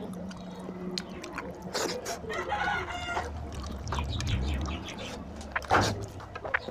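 Wet clicks and squelches of fingers tearing apart a curried goat head. A rooster crows once in the background, for about a second, near the middle.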